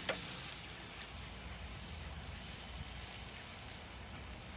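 Hanger steaks sizzling over hot charcoal on a grill, a steady hiss, with a short click of metal tongs right at the start.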